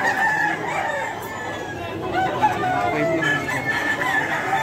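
Gamecocks crowing, several long crows overlapping one another, with some clucking among them.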